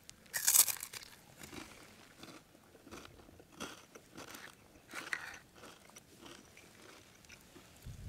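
Footsteps crunching, a step every half second to a second, the loudest about half a second in.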